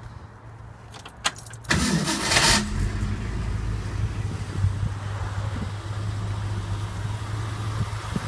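The rebuilt 289 four-barrel small-block V8 of a 1966 Ford Mustang GT fastback starting: two clicks, then a brief loud burst as it fires about two seconds in, settling into a steady idle that purrs.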